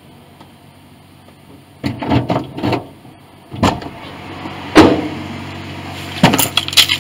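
A run of knocks, bumps and rattles inside a car, over a faint steady hum: a cluster of sharp knocks about two seconds in, one loud thump near the middle, and another flurry of knocks near the end.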